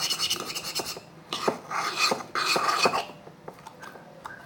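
Scraping and rubbing inside a mixing bowl in two longer runs, with scattered light clicks, as leftover sticky slime is cleared from the bowl. It quietens near the end.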